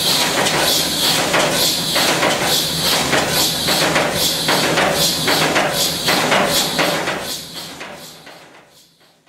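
Large 16-cylinder diesel engine running, a loud hissing clatter with irregular knocks, fading away over the last two seconds.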